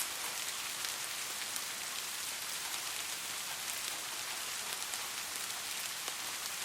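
Steady soft rainfall: an even hiss with scattered individual drops ticking.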